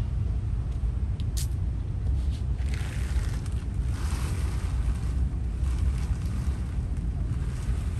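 A steady low rumble, with the rustle of a fabric car cover being dragged off a car from about three to five seconds in.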